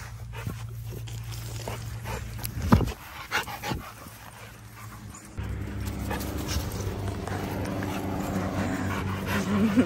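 A dog, likely a lab mix, panting hard while playing. There is a sharp thump about two and a half seconds in, and a short wavering whine near the end.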